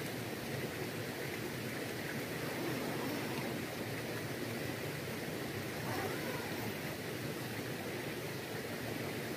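Steady rushing of a river flowing.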